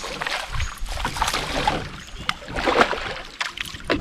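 Water splashing and sloshing around a canoe in a few irregular bursts, with some sharp knocks.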